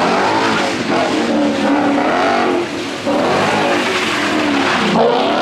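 Car engine revving hard, its pitch climbing and falling several times, over a steady noise of tyres. There is a brief dip in level just before the middle.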